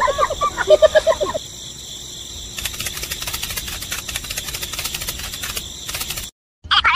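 High-pitched cartoon character voices chattering for about a second and a half, then a fast run of dense clicking for several seconds that cuts off abruptly; the squeaky chatter starts again at the very end.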